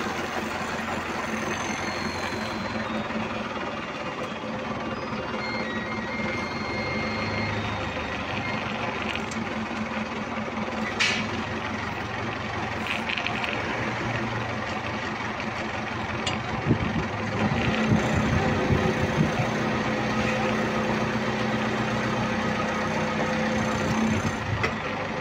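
Forklift engine running steadily, with a sharp knock about eleven seconds in. It gets louder and rougher about two-thirds of the way through.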